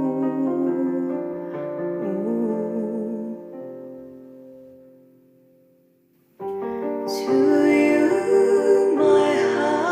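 Soft, slow background music with sustained notes that fades away about six seconds in, then starts again abruptly, louder and fuller.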